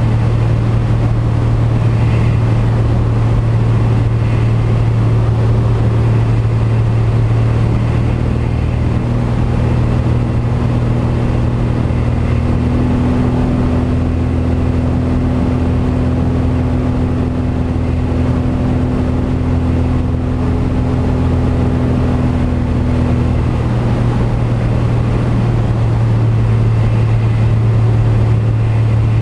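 Single-engine propeller aircraft's piston engine and propeller droning steadily, heard inside the cockpit during the approach to land. The note changes partway through: an extra lower and higher tone come in about nine seconds in and fall away again about 24 seconds in.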